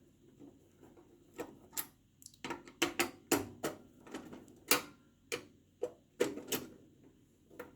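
Irregular sharp clicks and ticks of a screwdriver working the small screws that hold a desktop PC's hard drive.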